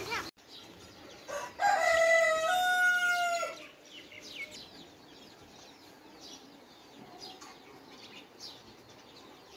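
A rooster crows once: a loud call of about two seconds, a second and a half in, held on stepped notes. Faint chirping of small birds follows.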